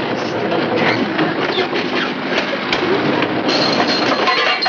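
Rattling and banging of loose gear in a small boat's cabin as it rocks hard in rough water, a continuous clatter of many quick knocks. It turns brighter and hissier near the end.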